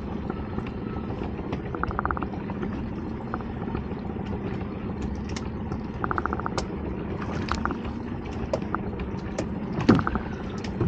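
A fishing reel being wound in, giving short bursts of rapid ticking, over the steady hum and wash of a small boat at sea. One sharp knock comes near the end as fish are lifted aboard.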